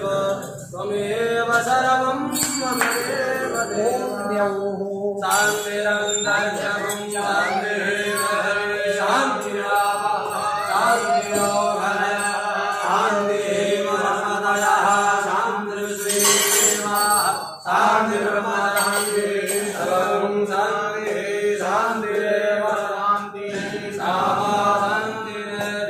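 Devotional Hindu mantra chanting by voices, going on continuously over a steady low held tone.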